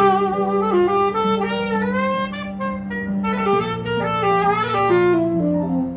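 Tenor saxophone playing a melodic solo line in phrases with short breaks, over sustained low accompaniment notes that change every second or two.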